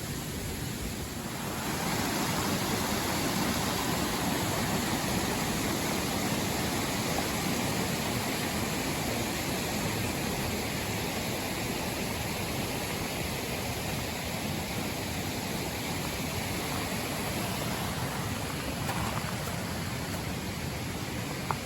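A steady rushing noise with no distinct events, growing louder about two seconds in.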